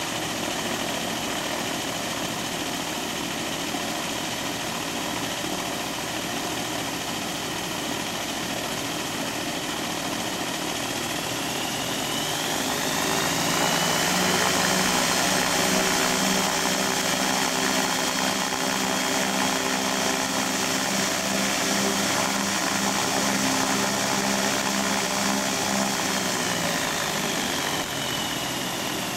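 Rotax 912 flat-four aircraft engines driving pusher propellers on a ground run-up: running steadily at idle, then a little under halfway through the revs rise and hold higher and louder for about fourteen seconds before dropping back to idle near the end.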